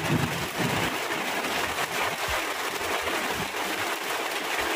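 Steady rain falling, with a few short low thuds.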